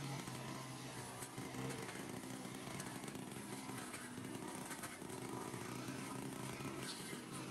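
Two small two-stroke petrol engines running together: a chainsaw cutting through tree branches and a string trimmer cutting grass, their engine note held fairly steady.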